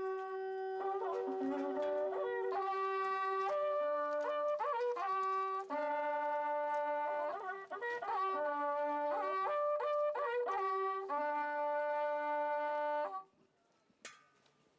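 Several Andean cow-horn trumpets (wakrapuku) playing a melody together in long held notes, breaking off abruptly about thirteen seconds in. A single sharp click follows near the end.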